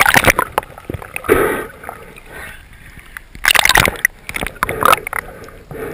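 Splashing at the water's surface as a freediving spearfisher and his camera go under, then muffled underwater water noise with loud bursts about three and a half and five seconds in.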